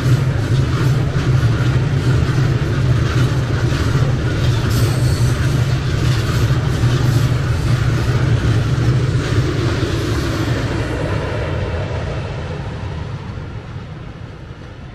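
Freight train of container wagons rolling past: a steady low rumble with repeated clacks of wheels over the rails. It fades away over the last few seconds as the end of the train goes by.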